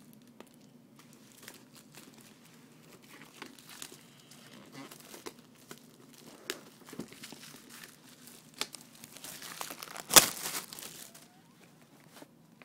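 Plastic shrink-wrap being picked at, crinkled and torn by fingers, with scattered crackles building to a loud rip about ten seconds in.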